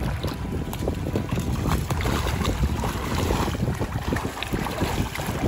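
Wind rumbling on the microphone over water sloshing and splashing, as legs and a standard poodle wade through shallow sea water.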